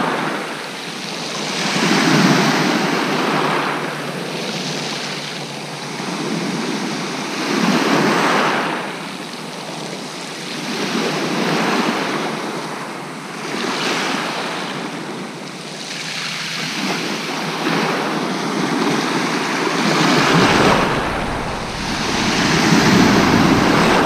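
Sea waves breaking and washing up a shingle beach, the surf swelling and fading every few seconds. Wind buffets the microphone with a low rumble in the last few seconds.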